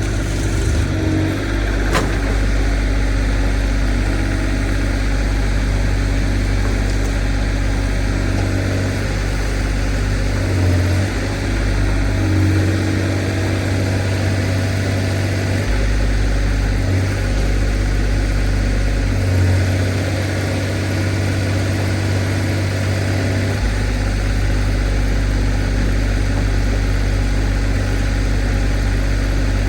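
Kubota KX040 mini excavator's diesel engine running steadily while its hydraulics work the arm to shove a culvert into a creek bed. The engine note shifts several times as the load changes, with a sharp knock about two seconds in.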